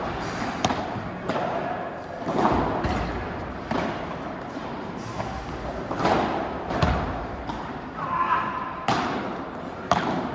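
Padel rally: the ball is struck back and forth by rackets and bounces, giving a sharp knock about every second at an uneven pace.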